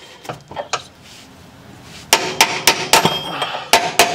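Hammer tapping a misaligned shock bolt through the upper rear shock mount of a 1980 C3 Corvette, metal striking metal. After a few faint clicks and a short pause, sharp ringing taps start about two seconds in and come about four a second.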